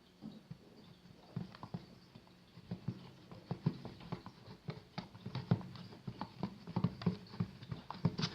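Fluffy shaving-foam slime being mixed as activator is worked in, giving irregular sticky clicks and pops that come thicker and faster from about a second and a half in.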